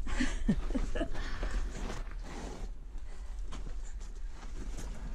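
A person crawling under a boulder over gravel and rock: scuffing and scraping, with a few short grunts in the first second or so.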